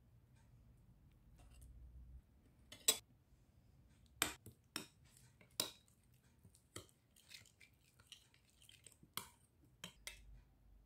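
A metal spoon clinking against a glass mixing bowl while stirring a thick, oily spice marinade: about ten sharp, irregular taps, starting about three seconds in.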